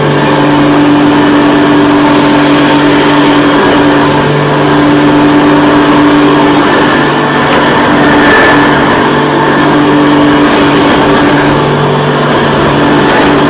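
Hoover U4008 Convertible upright vacuum cleaner running, vacuuming a plush rug: a loud, steady motor hum that swells and dips slightly now and then.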